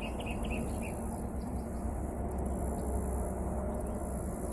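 Insects chirping and buzzing, with a quick run of short chirps in the first second, over a steady low rumble.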